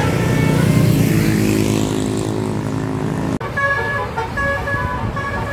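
A tour bus passes close by with its engine running loud. After an abrupt cut about three seconds in, a bus's multi-tone 'telolet' musical horn plays a short tune of stepping notes.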